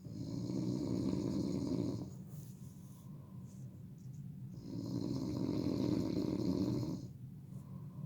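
A person snoring loudly: two long snores of about two seconds each, some four and a half seconds apart, with a quieter phase of the breath between them.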